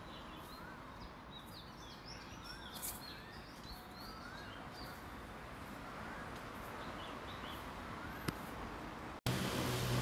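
Faint outdoor ambience with birds chirping: a short rising-and-falling call repeats every second or two, over higher twitters. Near the end the sound drops out for an instant, then a louder low hum comes in.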